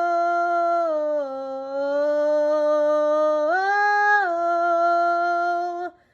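A woman singing unaccompanied, holding one long note on the word 'snow'. The note sinks a little about a second in, rises again about three and a half seconds in, and settles back before she cuts it off sharply near the end.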